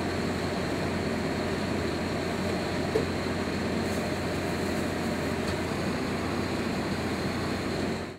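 Steady mechanical hum of equipment running in a food truck kitchen, with a constant low tone and a faint high whine; it cuts off suddenly at the end.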